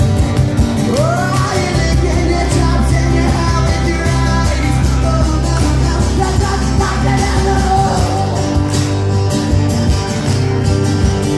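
Live acoustic rock performance: strummed acoustic guitars with a lead vocal singing a melody, and a low bass line held under the chords for most of the stretch.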